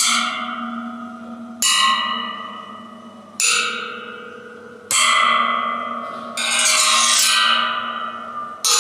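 Water-filled waterphone, a stainless-steel resonator with rods of different lengths, struck again and again: each hit rings out with many metallic tones that slowly die away, the water inside shifting the echo. About six and a half seconds in, a longer, denser stretch of ringing is followed by another sudden hit.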